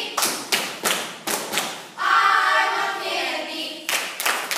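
A run of sharp percussive hits, about three a second, echoing in a large hall, stopping for a stretch of voices singing about two seconds in, then starting again near the end.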